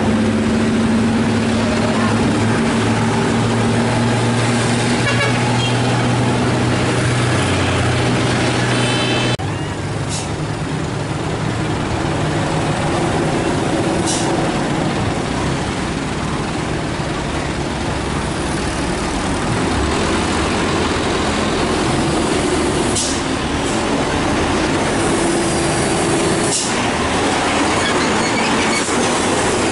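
Heavy diesel trucks running at close range while they labour on a steep road, with a few short air-brake hisses. The engine sound changes abruptly about nine seconds in.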